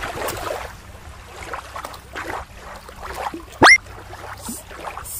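A splash as a plastic toy lobster lands in shallow water at the start, then water lapping along the shore. Near the end comes a short, loud whistle that rises sharply in pitch.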